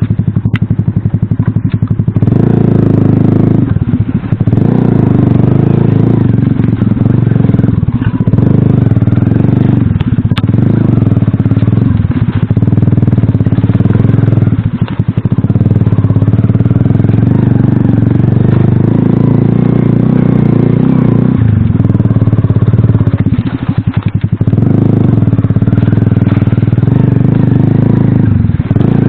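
Small moped-class motorcycle engine running under load while riding, revving up and easing off, with brief dips in its sound every few seconds as the throttle closes and it changes gear.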